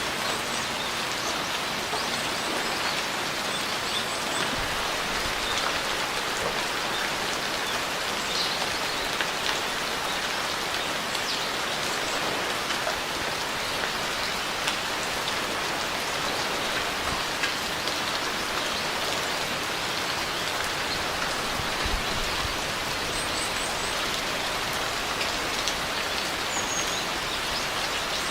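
Steady rain falling and pattering on surfaces, an even dense hiss of drops with a few sharper drop ticks here and there.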